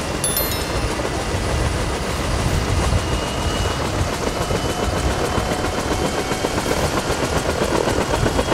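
Helicopter rotor sound effect, a fast, steady chopping, for a toy helicopter's takeoff.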